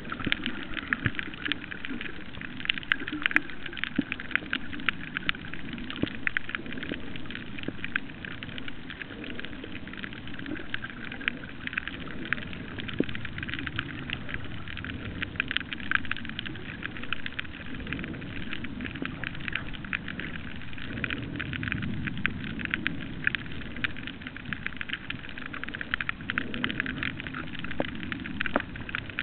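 Underwater reef ambience heard through a submerged camera: a dense, continuous crackle of tiny clicks over a low, muffled rumble.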